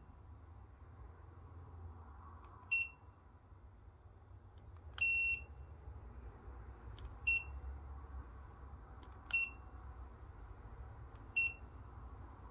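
Aneng 681 multimeter beeping as its function button is pressed to step through its modes: five short, high beeps about two seconds apart, each just after a faint click, the one about five seconds in held longer.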